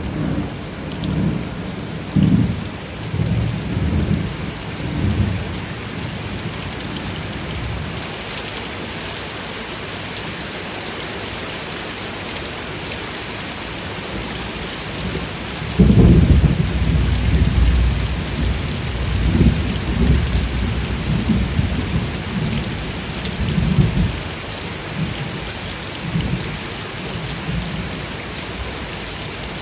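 Steady rain falling, with thunder rumbling. The rumbles come in the first few seconds and then, after a lull, break in again sharply just past halfway and roll on in waves for several seconds.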